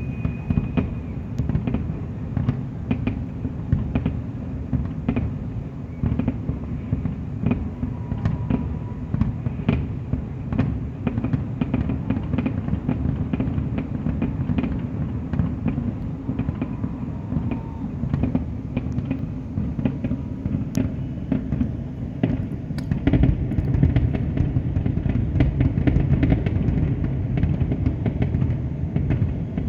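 Fireworks display: many rapid bangs and crackles over a continuous low rumble, growing louder and denser about three-quarters of the way through.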